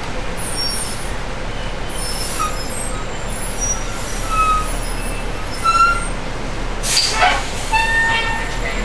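Inside a moving bus: steady running noise with short squeaks, then a brief air-brake hiss about seven seconds in, followed by a steady high brake squeal.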